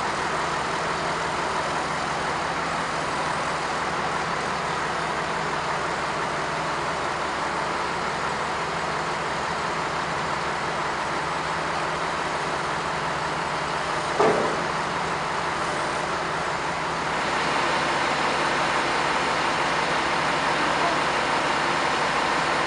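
Heavy machinery diesel engine running steadily, with a brief knock about fourteen seconds in; the sound gets louder from about seventeen seconds.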